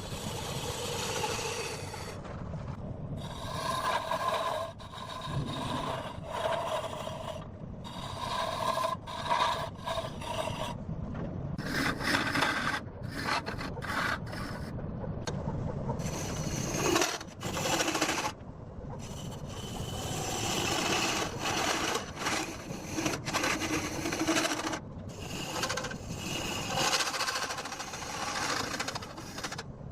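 A turning tool cutting into a large rosewood log spinning on a lathe: a rough, rasping scrape of steel on wood. It breaks off briefly several times and then carries on.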